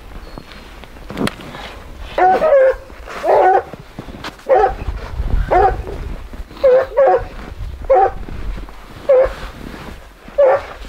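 Hunting dog barking in a steady series, about one bark a second, starting a couple of seconds in.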